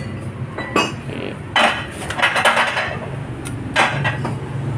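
Metal clanks and knocks from a motorcycle wheel rim being handled on a rim-straightening press, over a steady low hum.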